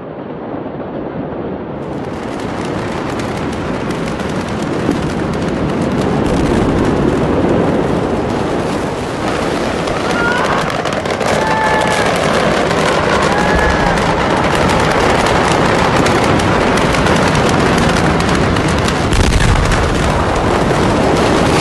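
Aftermath of a massive explosion: a loud, dense roar full of crackling, swelling over the first few seconds and then holding steady, with faint shouts about halfway through.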